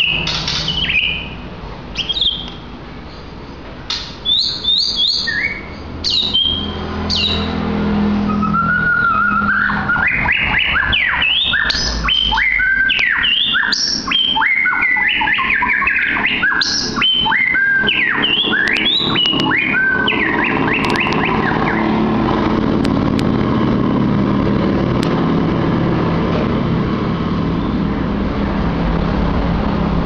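White-rumped shama singing: separate clear whistled notes, then a long, fast run of varied sweeping phrases from about 8 to 21 seconds in. After that the song stops and a steady low background rumble is left.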